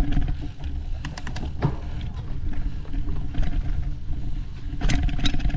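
Steady low rumble of wind and ride noise on the microphone while riding a rough, rocky singletrack trail, with scattered clicks and rattles from the bumps.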